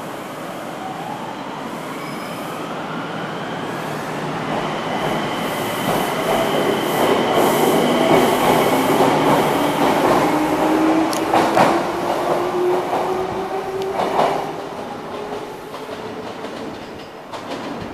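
Enshu Railway 2000-series electric train pulling out and accelerating past, its traction motors whining with a slowly rising pitch over the running noise. The wheels click sharply over rail joints as the cars go by, and then the sound fades as the train draws away.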